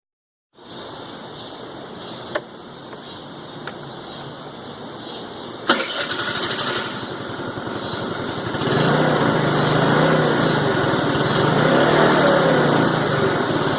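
49cc Chinese scooter engine running after a fresh oil change. A sharp click comes about six seconds in, and from about nine seconds the engine grows louder, its pitch wavering as it revs.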